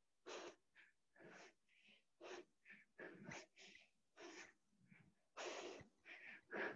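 A woman breathing hard during single-arm dumbbell thrusters: faint, quick, heavy breaths, about two a second.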